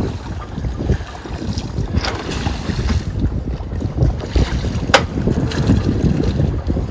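Wind buffeting the microphone on a sailboat's deck, with a sharp click about five seconds in.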